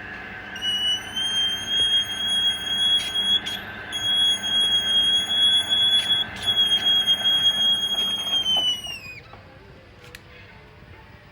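A high-pitched squeal from a crankshaft journal being polished on a lathe. It holds one steady pitch for about eight seconds, then slides down and dies away as the turning stops.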